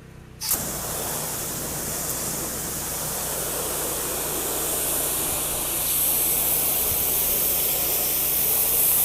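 Low-pressure washer spray hissing steadily onto a wood fence. It starts about half a second in and grows a little louder, with an engine running steadily underneath.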